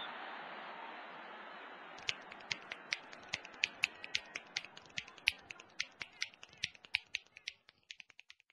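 Rapid finger snapping, a fast run of sharp snaps at about five a second that starts about two seconds in and stops abruptly. A fading wash of noise comes before it.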